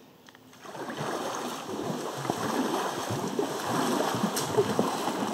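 Rushing, splashing river water around a kayak, starting about a second in and then running on steadily with many small crackles.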